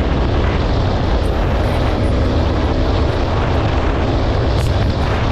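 KTM RC 200's single-cylinder engine running at riding speed, mostly buried under steady, loud wind rush on the microphone.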